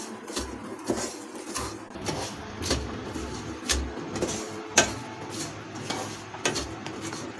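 Wooden spatula stirring a dry mixture of roasted ground coriander and chopped nuts in a nonstick pan, scraping and knocking against the pan every second or so.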